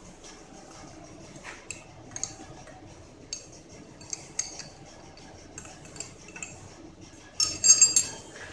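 Metal hand tools and steel parts clicking and clinking as they are handled on a milling machine during work setup, with a louder burst of ringing metal-on-metal clinking near the end.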